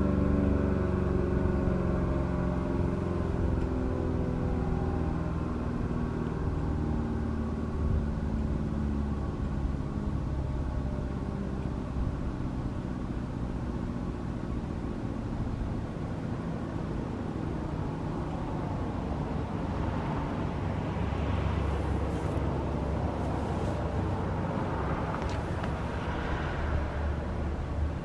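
ACA Allertor 125 rotating electromechanical siren winding down at the end of its full-alert test, its pitch sliding down and fading out over the first several seconds. A steady low outdoor rumble follows, with a passing vehicle near the end.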